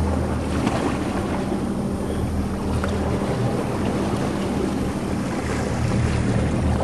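Boat's motor running with a steady low hum, with wind noise on the microphone.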